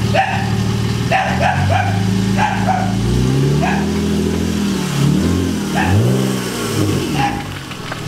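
BMW E46 3 Series coupé with a straight-through exhaust running at idle, then revved through several rising and falling sweeps from about three seconds in as it pulls away, before easing back near the end. A dog barks several times over it.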